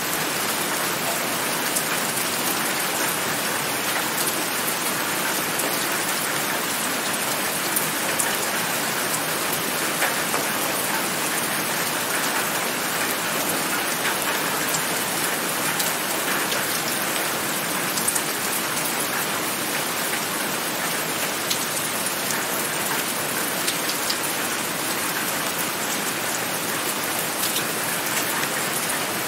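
Steady rain falling: an even, unbroken hiss with scattered sharper drop ticks.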